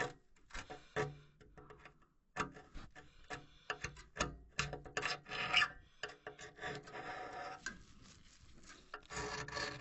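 A metal pick scraping and poking at the corroded cells of a Carrier furnace heat exchanger, in irregular scratches and taps. The pick is probing for places where corrosion has eaten through the metal.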